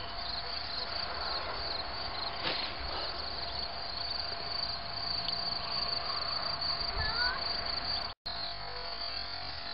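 Crickets chirping in a steady, high-pitched, finely pulsing trill, with a faint click about two and a half seconds in and a brief chirp about seven seconds in.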